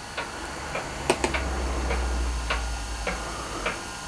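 Stylus pen tapping on the IBM ThinkPad 730TE tablet's screen: several sharp, light clicks at irregular spacing. A faint low hum swells in the middle.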